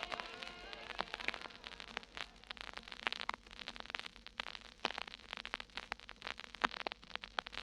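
Vinyl LP surface noise: a stylus riding the quiet groove between tracks, giving scattered clicks and pops over faint hiss, after the previous song's last notes fade out in the first second.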